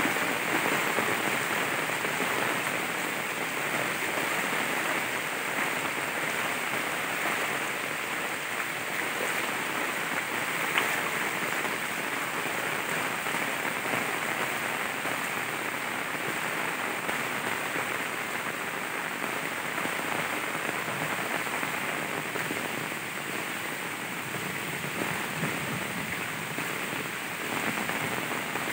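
Steady rain falling on wet grass, leaves and floodwater.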